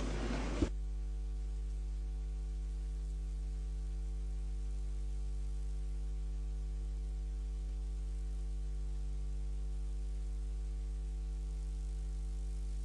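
Steady low electrical mains hum with a stack of evenly spaced overtones. A faint hiss cuts off about half a second in.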